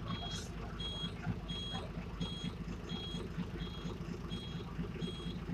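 A vehicle's reversing alarm: a short, high beep repeating evenly about every 0.7 seconds, over the steady low rumble of a bus engine.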